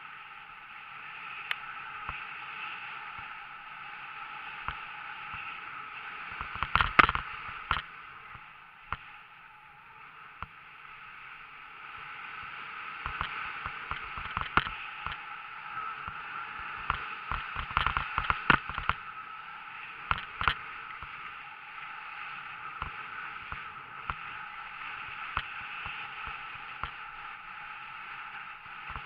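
Skis sliding and scraping over snow on a downhill run: a steady rush broken by sharper scrapes and knocks about 7 seconds in and again between about 13 and 19 seconds in.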